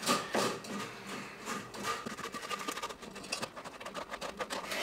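Spoon rubbing thick walnut sauce through a metal mesh sieve: many short scraping strokes against the wire in quick succession, thickest in the second half.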